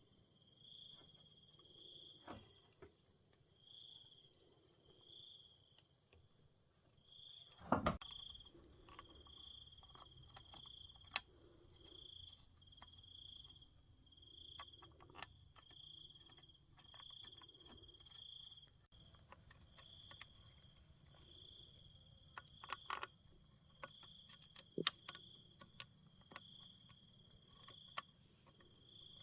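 Crickets and other insects chirping faintly: a steady high-pitched drone, with short chirps repeating roughly once a second. A few sharp clicks and knocks break in, the loudest about eight seconds in and several more near the end.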